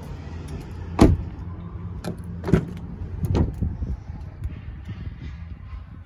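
A pickup truck's rear door being opened and handled: a sharp clunk about a second in, the loudest sound, then two more knocks about a second apart. A steady low hum runs underneath.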